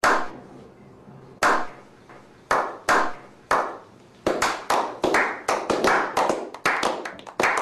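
A slow clap by a small group of men: single hand claps about a second apart, each echoing, then from about four seconds in more people join and the claps come faster and overlap into quickening applause.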